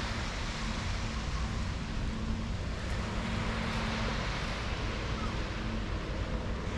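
Steady outdoor noise of wind and surf beside a beachfront street, with a low steady hum underneath that fades out about two-thirds of the way through.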